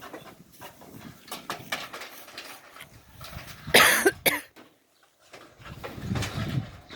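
A person coughs hard once, about halfway through, among faint rustling and light knocks.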